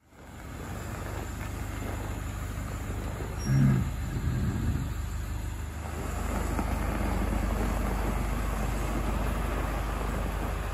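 International T444E V8 turbodiesel of a school bus running steadily as the bus pulls slowly forward. A brief, louder low-pitched sound stands out about a third of the way in.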